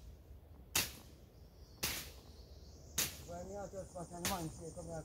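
Machete chopping through brush and vines: four sharp cuts about a second apart.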